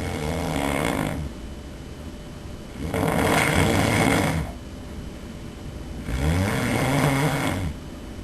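A sleeping man snoring loudly, one snore about every three seconds: the first dies away about a second in, and two more follow.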